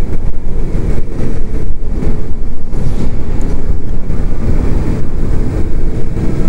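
Wind buffeting the camera microphone on a moving Zero DSR electric motorcycle: a loud, gusty rumble with no engine sound, since the electric drive runs almost silently.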